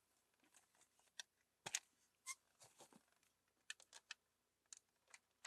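Faint, irregular clicks and light knocks of hard plastic toy parts being handled and fitted together, with one sharper click about two seconds in.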